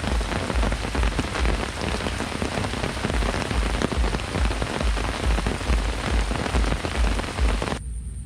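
Heavy rain falling close to the microphone: a dense hiss of countless drop impacts with a dull low pulsing beneath. It cuts off abruptly near the end.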